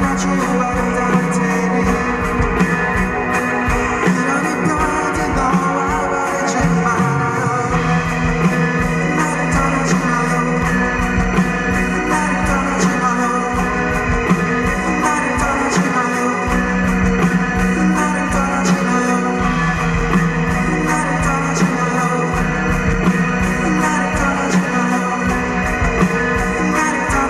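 Live rock band performing, with a male lead voice singing over keyboard and the full band, recorded from the audience.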